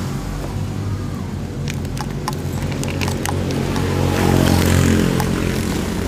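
A steady low engine-like hum runs underneath, with a few sharp clicks about two to three seconds in as brush-cutter handlebar parts are handled and fitted.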